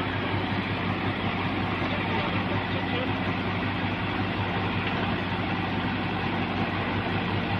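Heavy diesel engine running steadily, with an even low rumble.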